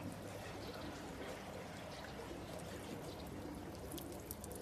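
Water pouring in a steady stream from a watering can, splashing onto plants and a small dog.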